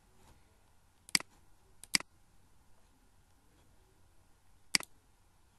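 Computer mouse clicks: a single click about a second in, a quick pair just before two seconds and another quick pair near the end, over faint room hiss.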